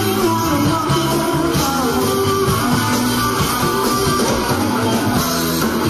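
Live rock band playing an instrumental passage, with electric guitar to the fore over a steady beat.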